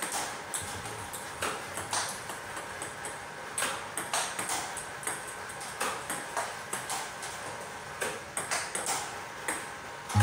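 Table tennis rally against a ball-throwing robot: the ball's sharp clicks off the table and the paddle, coming in an irregular run about twice a second.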